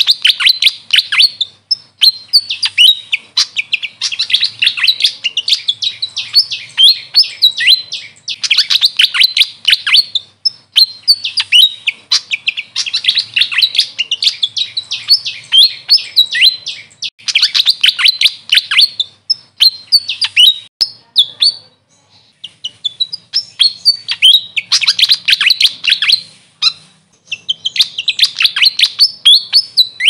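Grey fantail singing: fast runs of high, squeaky chirping notes in phrases of one to two seconds, repeated with short pauses and one longer break a little past the middle.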